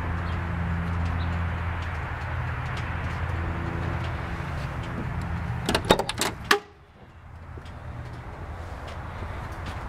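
Pontiac 400 V8 with Tri-Power carburettors idling steadily. About six seconds in, a quick run of sharp clicks and knocks as the car door is unlatched and opened.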